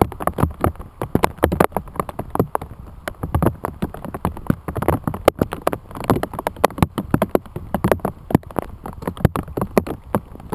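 Hail and rain pelting a plastic bag wrapped around the camera: a loud, dense, irregular patter of sharp hits.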